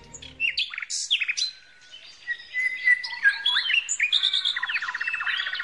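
Several forest birds singing and calling together: quick whistled chirps and sweeping notes, a held whistle a few seconds in, and a fast trill near the end.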